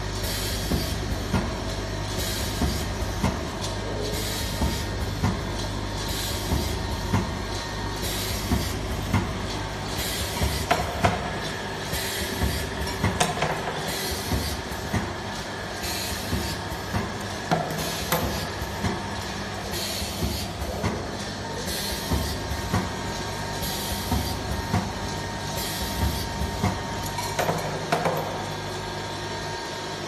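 Automatic vial filling, stoppering and capping machine running: a steady low hum with regular mechanical clacks about once a second as its turntable indexes the vials through the stations.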